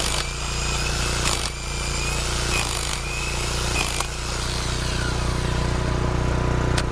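Corded rotary hammer drill hammering a masonry bit into concrete, drilling an anchor bolt hole. It stops about four seconds in, leaving a steady engine hum.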